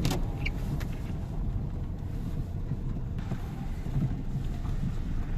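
Steady low rumble of outdoor street noise with wind buffeting the microphone, and a single sharp click right at the start.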